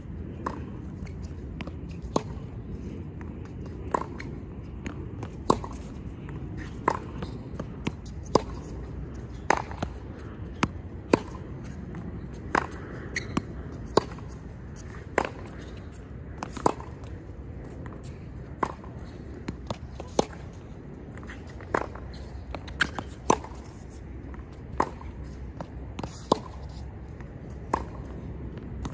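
Tennis racket striking the ball over and over in a forehand and backhand drill on a hard court: sharp pops about every second and a half, with softer knocks between them, over a steady low background rumble.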